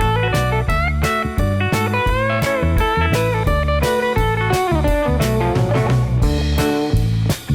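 Background music: bluesy electric guitar with sliding, bending notes over a steady beat.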